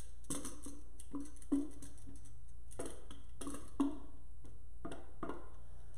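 Irregular hollow knocks and taps, about seven, as bruschetta topping is shaken and scraped out of an upturned plastic container into the bowl, with two louder knocks about one and a half and four seconds in. A faint low hum runs underneath.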